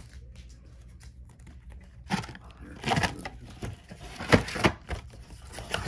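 Trading cards and rigid plastic toploaders being handled on a table: a few scattered clicks and taps from about two seconds in, after a quiet start.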